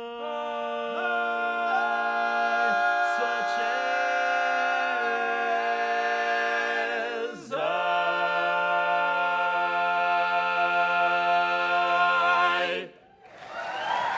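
Barbershop singers finishing an a cappella song in close harmony, with sustained chords, a short break about halfway, and a long held final chord that cuts off. Audience applause breaks out just before the end.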